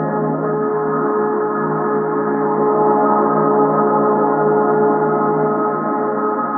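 Ambient drone sound effect: a dense, unchanging layer of many held tones with a gong-like shimmer over a low hum, with no strikes or breaks.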